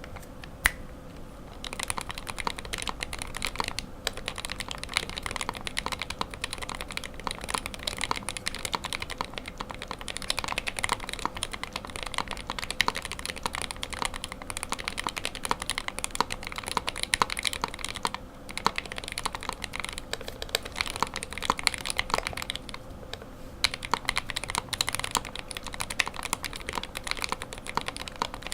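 Steady typing on an iGK62 mechanical keyboard with an aluminium case, lubed Gateron optical linear silver switches and ePBT keycaps: a dense run of keystrokes with short pauses about 18 and 23 seconds in.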